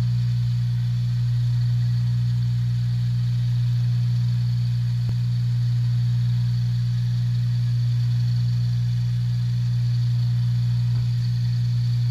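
RIDGID wet tile saw running unloaded, its motor and blade giving a steady, unchanging hum with a faint high whine, before the stone is fed in.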